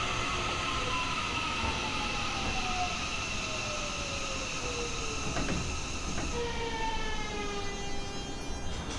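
Seibu 30000 series later-batch train's Hitachi two-level IGBT VVVF inverter whining in several tones that fall steadily in pitch as the train brakes to a stop at a station, over the rumble of the wheels, heard from inside the car. About six seconds in, the whine changes pattern and a fresh set of tones drops away as the train slows to a halt.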